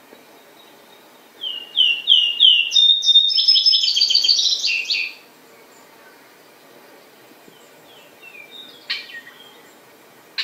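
Vesper sparrow singing: four slurred whistled notes, then a run of faster, higher trills that fades out. A few fainter bird notes come near the end.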